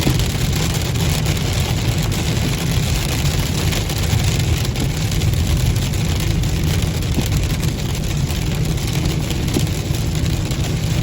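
Steady wind and road noise inside a moving car with its windows down, heaviest at the low end, with the engine running beneath it.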